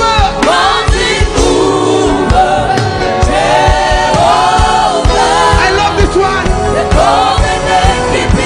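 Gospel worship music: a choir singing over a band with a steady drum beat.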